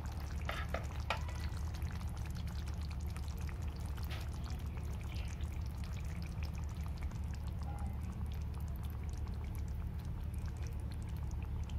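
Thick pork and potato curry in a steel kadai still bubbling softly just after the gas is turned off: many faint pops and ticks over a steady low hum, with a few sharper clicks about half a second to a second in.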